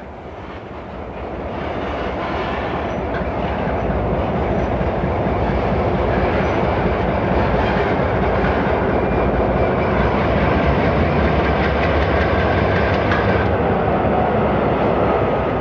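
Loaded coal train of steel hopper cars rolling past with diesel locomotives working among them: wheels running over the rails under a steady engine drone. It grows louder over the first few seconds as the locomotives draw near, then holds steady.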